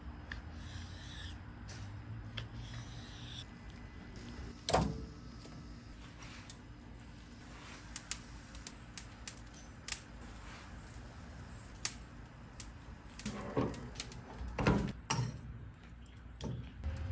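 Food-prep handling sounds: soft knife slicing through rolled flank steak, then scattered clicks and knocks as steak pinwheels are set down on metal grill grates. One sharp knock comes about five seconds in, and a cluster of knocks comes near the end.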